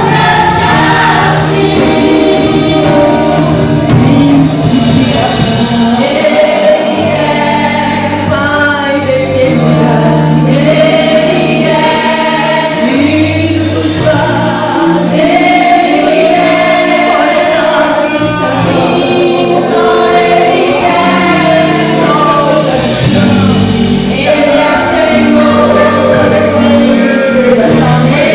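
Gospel choir singing a Christian song over instrumental accompaniment.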